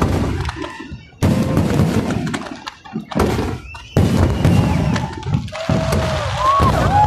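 Aerial firework shells bursting overhead: several heavy booms a second or two apart, each trailing off into a long low rumble. Whistling tones rise and fall near the end.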